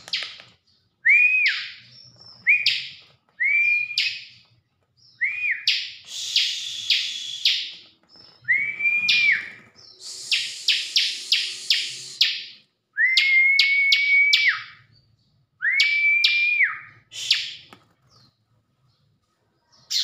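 A ciblek (bar-winged prinia) singing in repeated phrases. Each phrase is a clear slurred note followed by a quick run of sharp chips, and a few of the notes are held for a second or more.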